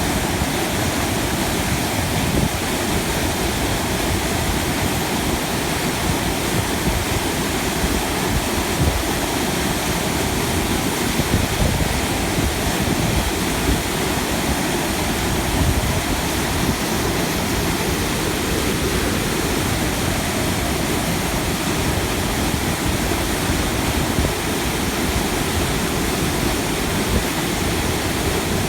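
Steady rush of fast-flowing river water over rapids, an even, unbroken wash of noise.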